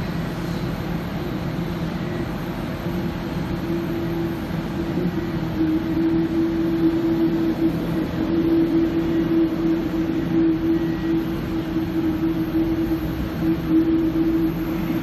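Jet airliner taxiing: steady engine noise with a constant low hum, growing a little louder about halfway through.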